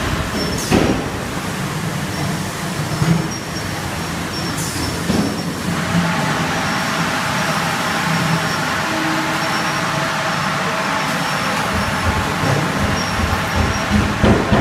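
Machinery of a 5-gallon bottled water filling line running: a steady mechanical noise with a faint whine, broken by a few sharp knocks, one about a second in and another near the end.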